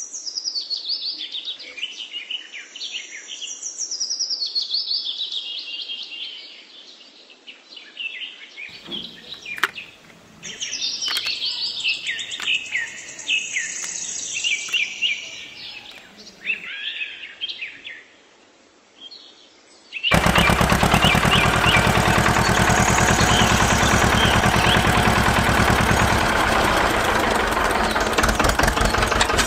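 Small birds chirping and twittering, with a few sharp clicks about a third of the way in. About two-thirds of the way through, a small electric motor of a homemade toy tractor starts up with a loud, fast, rattling buzz that runs steadily to the end, while a bird still chirps over it.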